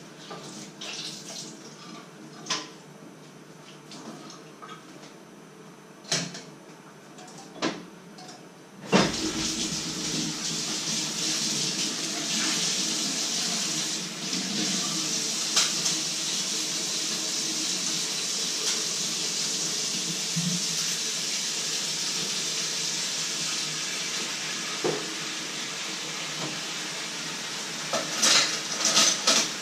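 A few knocks of pots and pans, then about nine seconds in a kitchen tap is turned on and runs steadily into a stainless-steel sink, with a few metal clinks near the end.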